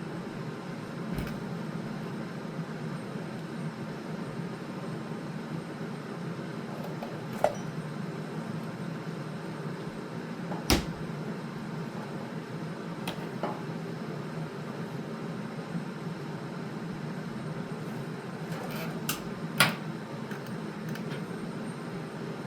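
A steady low mechanical hum, with a handful of short sharp clicks and knocks scattered through it.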